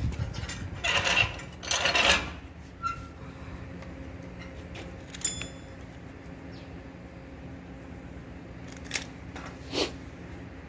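Light metal clinks and scrapes from steel rod being handled and set in a bench vise, over a faint steady hum. One short ringing clink comes about five seconds in, and a couple of sharp clicks near the end.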